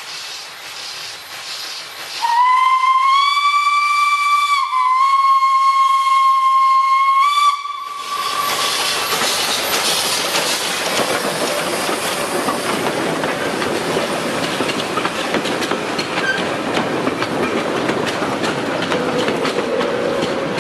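Steam locomotive whistle blowing one long note of about five seconds, starting about two seconds in, with a brief dip in pitch midway. The locomotive then passes close by with a loud hiss of steam and exhaust, followed by its coaches rolling past with clattering wheels on the rail joints.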